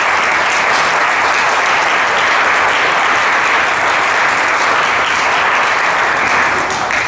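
A group of people applauding: steady hand clapping that dies away near the end.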